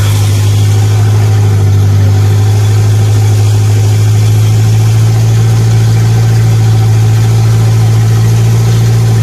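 Wooden boat's engine running steadily as the boat cruises, a loud, even, low drone.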